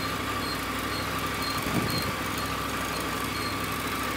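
Motorcycle engine running steadily at idle with no throttle applied, the bike rolling at walking pace.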